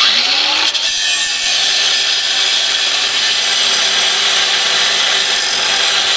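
Angle grinder starting up suddenly, rising to speed within the first second, then grinding steadily through a seized steel clevis pin at a bus's air-brake chamber pushrod.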